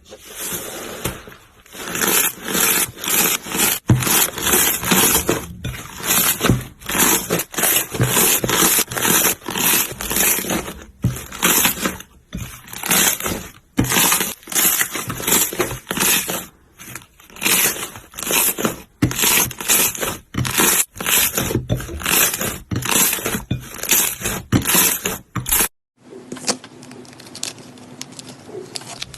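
Slime being squeezed and pressed in quick repeated strokes, each one a crackly, crunchy burst, about two or three a second. Near the end it cuts off abruptly and a quieter, softer crinkling takes over.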